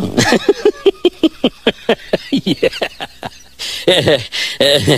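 Rapid human laughter, a quick string of short 'ha' bursts each falling in pitch, about five a second, turning louder and breathier about three and a half seconds in.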